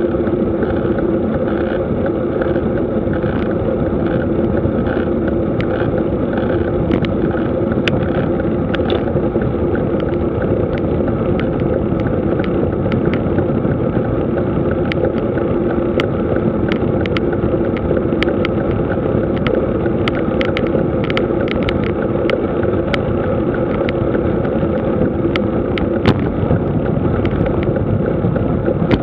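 Steady rush of wind and tyre noise from a bicycle being ridden on a paved road, picked up by a camera mounted on the bike. Many small clicks and taps from the bike and mount come through, more often after the first several seconds.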